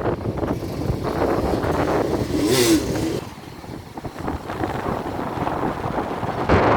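Strong wind buffeting the microphone over sea surf, with a short hiss about two and a half seconds in and a brief lull just after.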